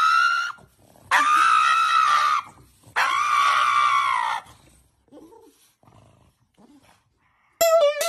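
Pug howling in three long, high-pitched wails, the second and third each well over a second long. Near the end a short bit of electronic music begins.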